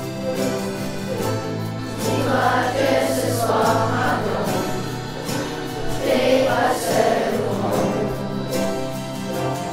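A ukulele ensemble strumming chords while a group of children sing together, the voices strongest through the middle.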